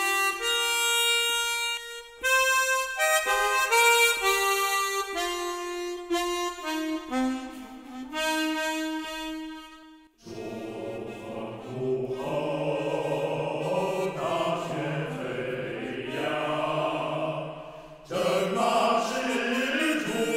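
Closing-credits theme music. A single melody line plays in clear stepped notes at first, and about ten seconds in a fuller, denser passage takes over.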